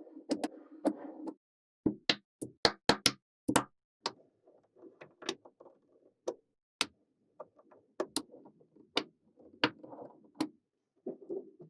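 Small magnetic balls clicking sharply as they snap together, in an irregular series with a quick run of clicks about two to three seconds in. Softer rolling and rustling of the balls lies between the clicks.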